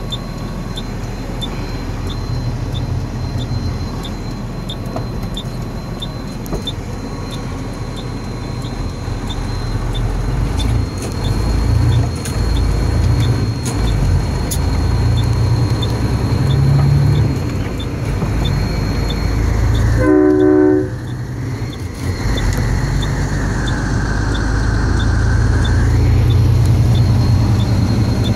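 Semi truck's diesel engine running under way, heard inside the cab, growing louder as the truck pulls harder partway through. About twenty seconds in, a short horn blast sounds for about a second.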